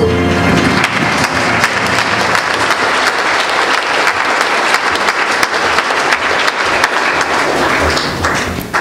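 A congregation applauding with steady, dense clapping, which starts to thin out near the end. The band's last held chord fades out under it in the first half-second.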